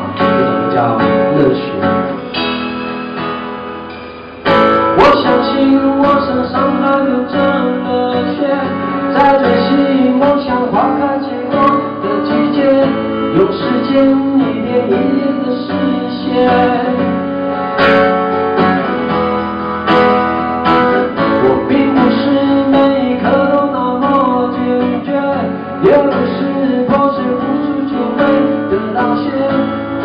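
Live acoustic guitar strumming with a male voice singing, amplified through a PA. The music fades for a couple of seconds and comes back in strongly about four and a half seconds in.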